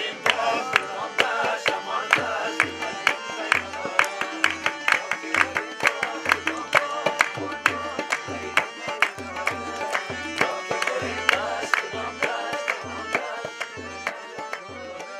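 Live South Asian–style music: a harmonium playing sustained chords and melody over hand drums that keep a quick, steady beat with deep bass strokes, with a voice singing along at times.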